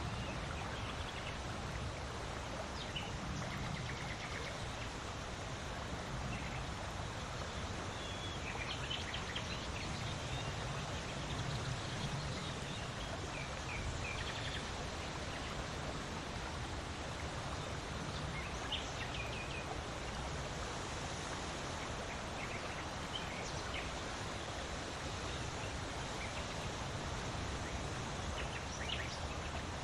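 Steady wind blowing with a low rumble, and scattered short bird chirps over it.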